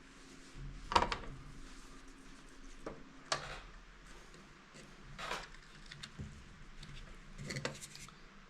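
Scattered clicks, taps and rustles of hands working on a car wiring harness on a table, pulling parts off the wires, with a sharper click about a second in and a few more spread through.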